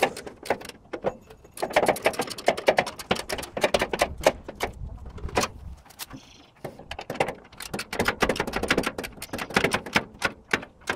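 Quick metallic clicks, clinks and rattles of hand tools and bolts as a steel fog-light bracket is bolted on. The clatter comes in two busy runs with a quieter stretch between them.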